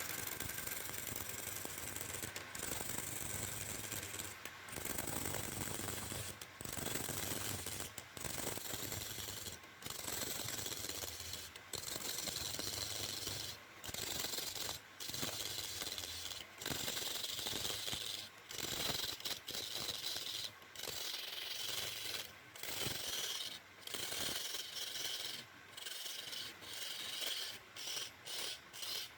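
Wood being scraped or cut by a hand tool in repeated strokes: a rasping, rubbing noise broken by short pauses every second or two, over a faint low hum.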